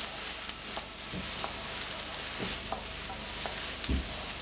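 Onions and ginger-garlic paste sizzling in hot oil in a pan, with a spatula stirring through them and clicking against the pan a few times.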